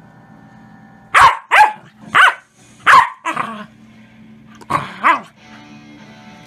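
Corgi puppy barking in short, sharp barks: a run of five over about two seconds, then two more near the end.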